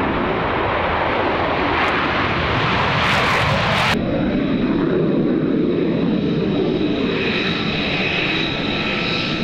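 F-35 fighter jet's single turbofan engine running on the runway: a dense rush of jet noise that changes abruptly about four seconds in to a steadier jet sound with a high whine.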